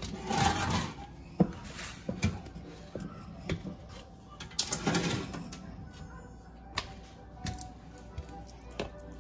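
Light clicks and knocks of spice jars and a plastic container being handled on a kitchen counter and stovetop, with two brief rustling swishes, about half a second in and about five seconds in.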